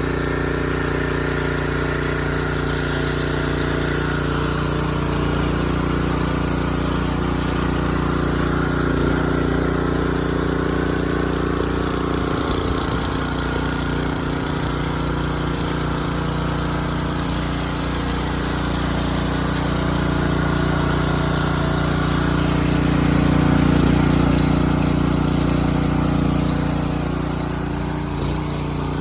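Freshly rebuilt small engine of a Craftsman 3000 psi pressure washer running steadily just after starting on the first pull, swelling a little louder about three-quarters of the way through.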